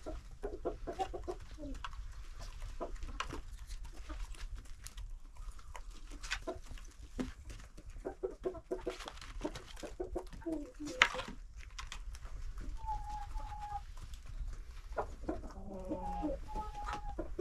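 Domestic hens and roosters clucking among themselves while they feed, with many short taps throughout and a sharp knock about 11 seconds in. A longer held call comes around 13 seconds, and a burst of clucking follows near the end.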